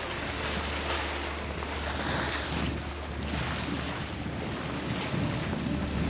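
Wind buffeting the microphone and water rushing along a sailboat's hull as it moves through the water, in uneven surges over a steady low hum.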